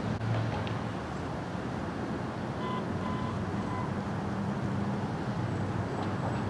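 Steady road traffic noise from a city street: a continuous low rumble of passing vehicles.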